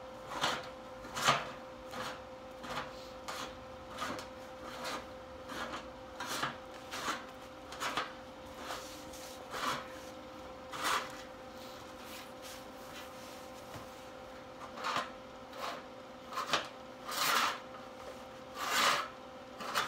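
Hand-filing the edge of a steel truck roll pan: short strokes of metal being filed, one or two a second, pausing for a few seconds in the middle and turning longer and louder near the end, over a faint steady hum.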